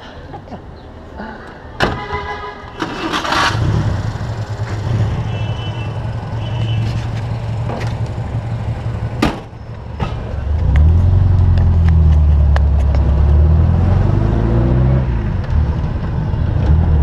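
Taxi's engine running with a steady low hum that gets much louder about ten seconds in. There is a sharp bang about two seconds in and another about nine seconds in.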